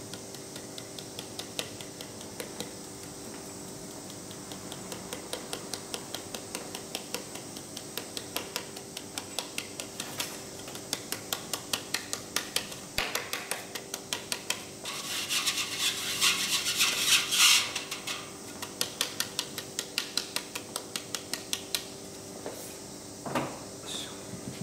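A wooden-framed sieve is shaken and tapped by hand to sift buckwheat and binder flour into a lacquered kneading bowl. It makes a steady run of light wooden knocks, about three a second, with a louder, denser rustling stretch for a few seconds past the middle.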